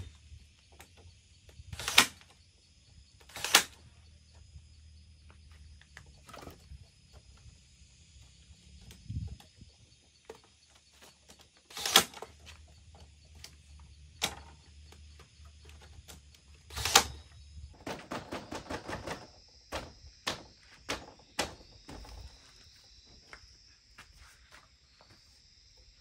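Sharp knocks from hand work on wood or bamboo, single loud strikes a second or more apart, then a quick rattling run of clicks and a few lighter knocks in the second half. A steady high insect drone runs underneath.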